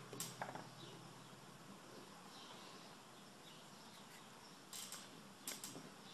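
Near silence with a few faint, short scratches of a stiff-bristled brush flicking weathering pigment powder against a model tank's tracks: one just after the start and two near the end.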